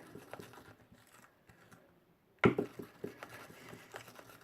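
Wooden spoon scraping and stirring runny glue slime in a bowl, with one sharp knock about two and a half seconds in.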